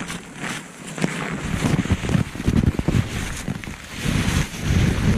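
Irregular rustling and low rumbling buffeting on the microphone, from wind and handling noise, as someone moves about in snowy brush.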